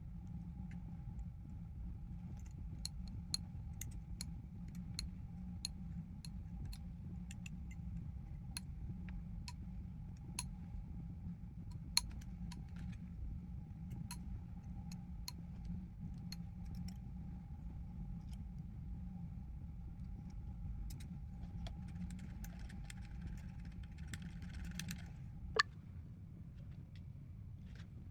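Scattered small metallic clicks and clinks from hands working on parts, over a steady low hum and a thin steady tone. The tone cuts off with a sharp click near the end.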